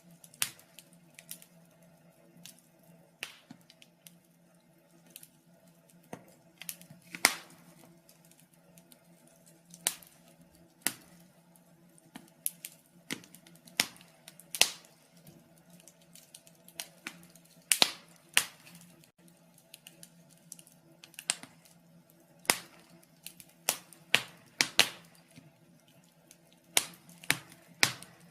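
Wood fire crackling: irregular sharp pops and snaps, some much louder than others, over a faint steady low hum.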